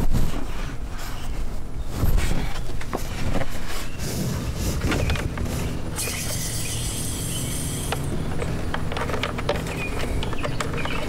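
Handling knocks and clicks, then about six seconds in a hiss lasting about two seconds: an aerosol can of evaporator foam cleaner spraying through its extension tube onto the car's air-conditioning evaporator.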